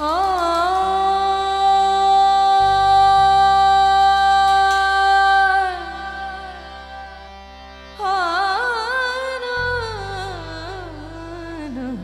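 Indian devotional bhajan music, instrumental or wordless introduction: a melodic line slides up into one long held note for about five seconds, then returns about eight seconds in with an ornamented phrase that wavers and falls in pitch. Low sustained accompaniment tones sit underneath and change note a couple of times.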